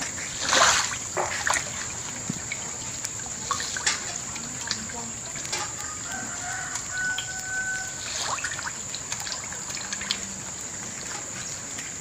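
Farmyard chickens calling, with one held call about two-thirds of the way in, over trickling water and a steady high-pitched tone.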